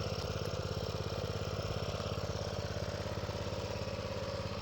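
Small mini bike engine idling steadily, with an even, rapid firing pulse.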